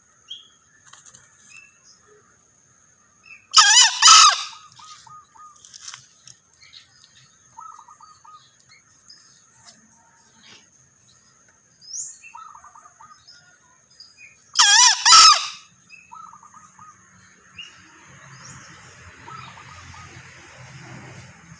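Male green junglefowl crowing twice, each a short shrill call of about a second, the two some eleven seconds apart. Faint chirps of small birds and a steady high thin tone sound between the calls.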